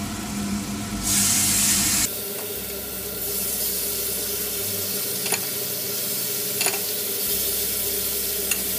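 Sirloin steak hitting hot oil and butter in a frying pan: a loud burst of sizzling about a second in, settling into a steady frying sizzle. A few light clicks of the tongs come through later.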